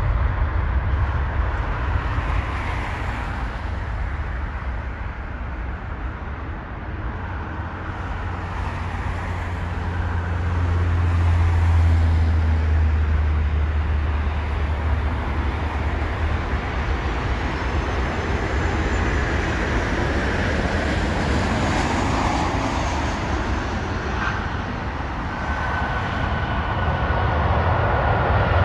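Jet airliner engines at takeoff power: a deep, steady rumble that is loudest a little under halfway through as the plane climbs away, then eases off. Near the end a steady high whine comes in and the level rises as another jet's engines run up on the runway.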